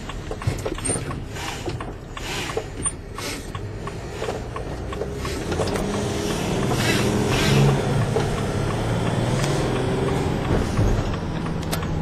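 Mercedes Sprinter van heard from inside the cab while driving: steady engine and road noise with small ticks and rattles, growing louder about halfway through.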